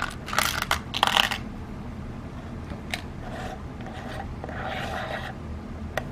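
A metal tin of .22 lead air gun pellets handled and turned over in the hands: sharp metallic clicks and scrapes in the first second and a half, then softer shifting and rattling of the pellets inside for a couple of seconds.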